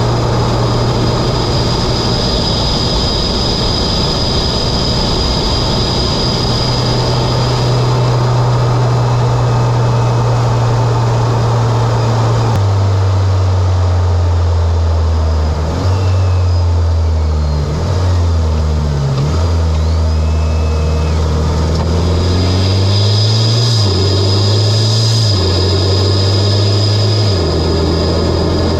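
Mitsubishi Lancer Evolution X's turbocharged four-cylinder engine, fitted with an aftermarket intake and exhaust, running at a steady cruise. About halfway the engine speed drops, then rises and falls in steps through several gear changes. A steady high whine runs over it at the start and again near the end.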